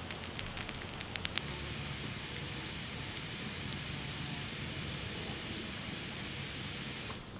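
Small wood campfire burning: a quick run of sharp crackles and pops in the first second and a half, then a steady hiss of flames.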